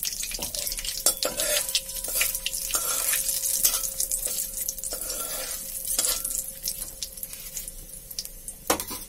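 Panch phoron seeds and dried red chillies sizzling and spluttering in hot oil in a kadai, with a metal spatula stirring through the pan. The sizzle eases off after about six seconds.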